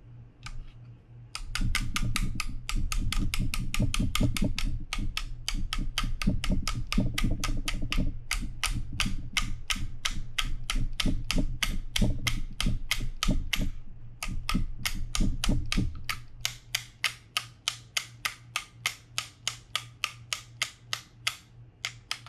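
Rapid, regular metal clicks from a hand tool working the seized anti-reverse part of a Daiwa BG90 spinning reel, about four a second, growing lighter and a little slower after about sixteen seconds. The part is stuck with dried-up grease.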